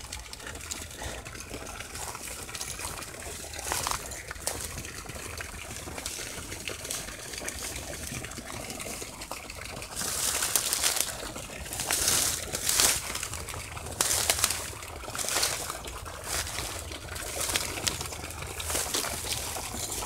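Dry reeds and tall grass rustling and crackling as someone pushes through them along the bank. A series of loud brushing bursts comes in the second half.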